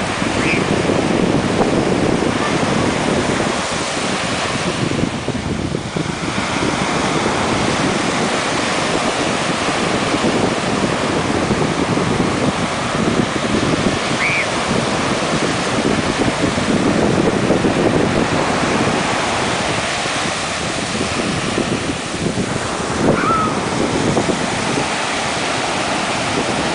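Ocean surf washing and breaking along a sandy shore, swelling and easing as the waves come in, with wind buffeting the microphone.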